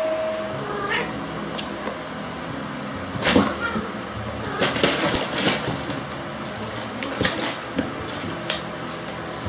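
Cats meowing, with several sharp knocks and thumps as they play, the loudest a little over three seconds in and a cluster around five seconds.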